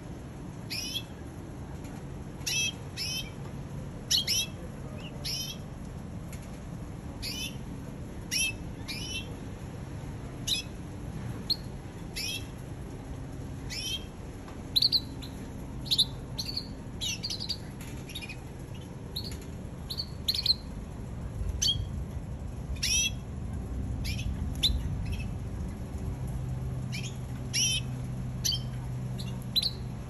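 Red canary giving short, high chirps that sweep downward in pitch, one every second or so with uneven gaps, over a low background hum.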